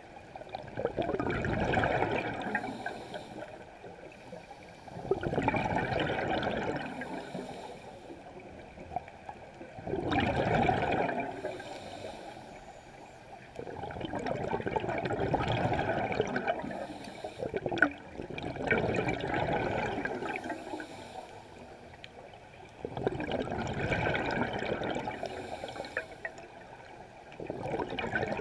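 Scuba diver's exhaled bubbles rushing out of a regulator in bursts about every four to five seconds, one per breath, heard underwater.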